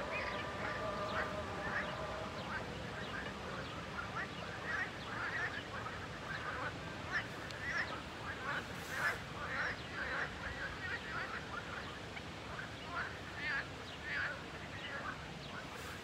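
Chorus of frogs calling continuously, many short, quacking calls overlapping. In the first two seconds a distant held, sung voice carries underneath.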